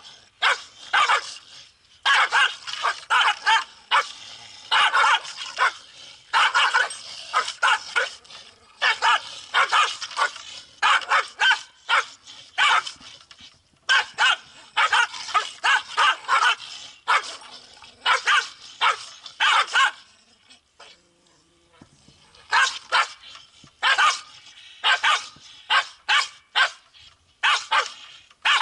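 Two Pungsan dogs quarrelling face to face, barking and yapping at each other in quick volleys, with a pause of a couple of seconds about two-thirds of the way through. It is a fight over home turf.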